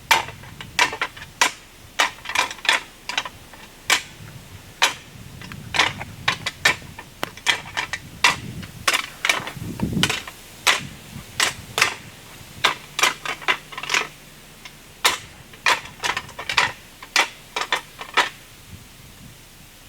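A long irregular run of sharp clicks or snaps, roughly two a second, that stops shortly before the end.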